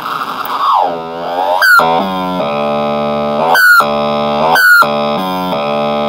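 Homemade DIY noise synthesizer built into a tin, giving a harsh buzzing tone with many overtones. It starts as a noisy hiss, then the pitch swoops down and back up and settles into a steady buzz, broken three times by short high rising squeals.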